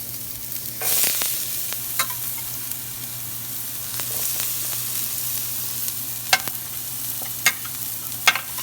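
Chopped shallot and garlic sizzling in hot olive oil in a pan, the sizzle surging about a second in as they go into the oil. A few sharp knocks of a utensil against the pan come through the steady sizzle, the loudest near the end.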